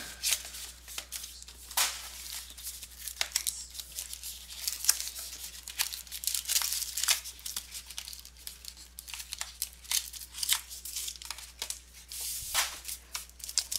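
A sealed box of trading cards being torn open: irregular tearing and crinkling of its wrapping and packaging.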